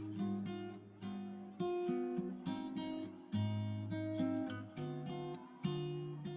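Background music on acoustic guitar: plucked and strummed chords, each struck sharply and left to ring.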